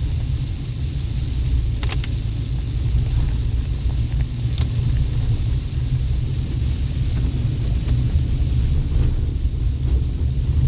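Steady low rumble of a vehicle on the move, with a few faint clicks.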